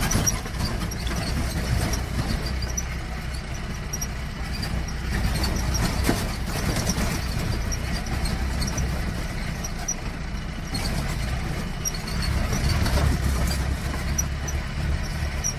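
Jeep's engine running as it drives along a rough road, heard from inside the cabin, with frequent small knocks and rattles over the bumps.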